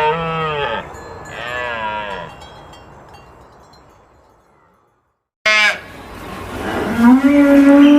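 Farm animals calling: a long wavering call at the start and a shorter one about a second and a half in, then a gap, a sudden short call, and a long steady call that begins about a second before the end.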